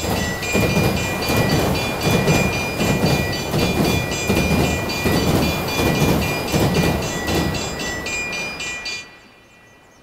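Train passing over a level crossing, its wheels clattering in a rhythmic beat, with the crossing bell ringing over it. Both stop suddenly about nine seconds in.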